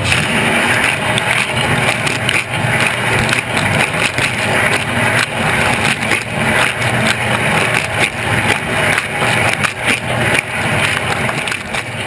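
Dishwasher wash cycle heard from inside the tub: water from the spray arms spattering against the walls and the camera housing, over a steady low hum from the wash pump. The tub is filling to a high water level now that a new washer has been fitted.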